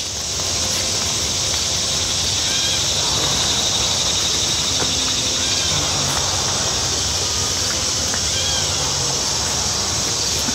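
Insects chirring in a steady, high-pitched, unbroken drone.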